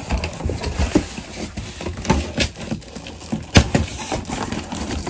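Packaging being handled and opened by hand: irregular rustling with sharp clicks and knocks, a few louder ones standing out.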